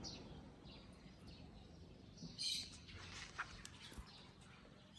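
Small birds chirping and calling, faint and scattered, with a louder cluster of chirps about two and a half seconds in.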